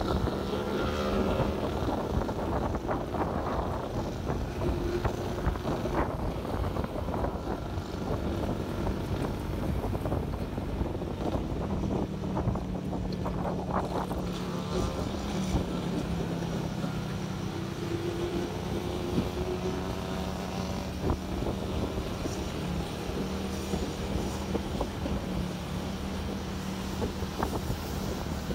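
Motorcycle engine running steadily while riding through traffic, with wind rushing over the microphone. Other motorbikes and cars are heard passing, their engines briefly rising and falling in pitch a few times.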